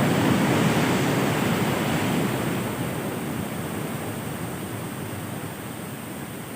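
Heavy ocean surf breaking and washing up the beach, the rush of water slowly dying away over several seconds.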